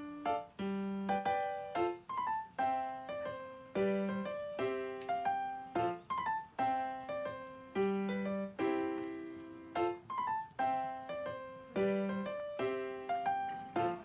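Background piano music: a light melody of single struck notes, about two a second, in a phrase that repeats every few seconds.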